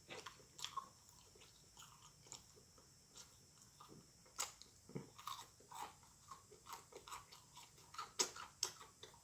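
A person chewing a mouthful of food close to the microphone: faint, irregular wet smacks and clicks of the mouth and teeth.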